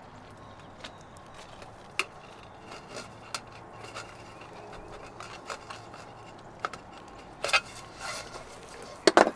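Aluminum window-wrap trim being cut at a corner: a few sharp snips and clicks, with two louder short scrapes of metal near the end.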